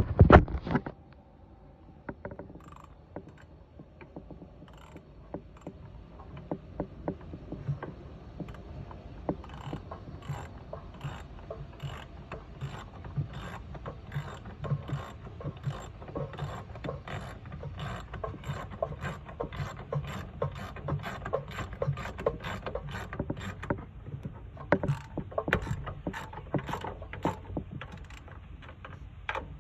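Hand ratchet wrench clicking in quick, even strokes as it runs down the thermostat housing bolts, after a brief loud clatter at the very start.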